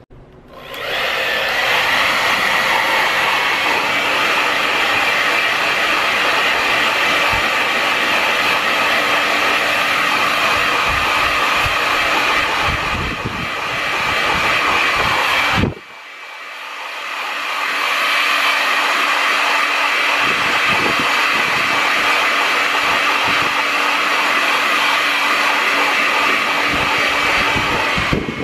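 Handheld hair dryer blowing steadily, a rush of air with a thin motor whine over it. It starts about a second in, drops out suddenly about halfway, and builds back up to full blow.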